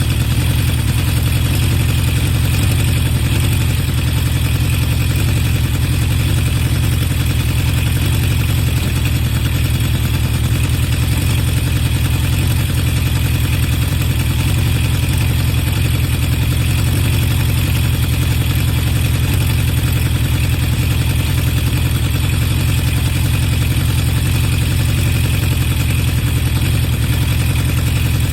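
Honda CB750 Four K3's air-cooled inline-four idling steadily through its HM341 mufflers with modified baffles. The carburettor float levels have just been reset, the #3 float having sat too high, and the engine runs evenly with no carburettor sneeze or spit-back.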